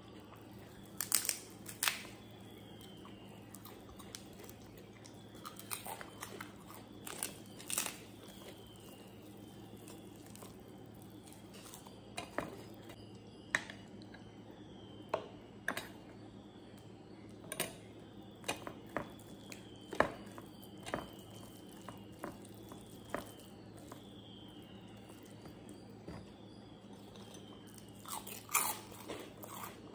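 Close-up eating sounds: chewing and crisp crunches of fried papad with rice and dal, a sharp crunch every second or two and a quick cluster of them near the end.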